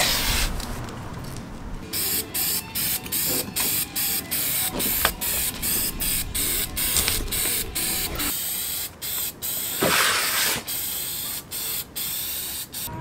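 Blue painter's tape pulled off its roll at the start. From about two seconds in, an aerosol can of bitumen-based sealant sprays in many short hissing bursts in quick succession, about two a second, with one longer burst near the ten-second mark.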